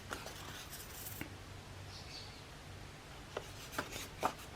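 Faint handling of paper pieces on a journal page: a brief papery slide in the first second, then a few light taps and clicks, over a low steady hum.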